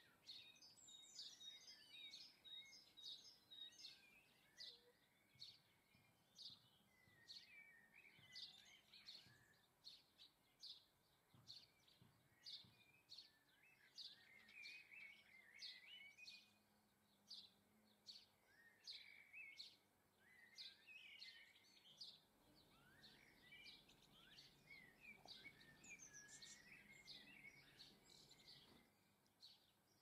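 Faint chirping and twittering of small garden songbirds: many short, high call notes in quick succession throughout, with twittering phrases between them.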